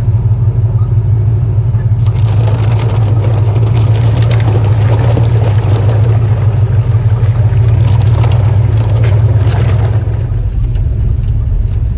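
Jeep engine running steadily with a strong low hum while crawling a rocky off-road trail. From about two seconds in until near the end, a clattering, crunching noise of the tyres and body working over rock rides on top.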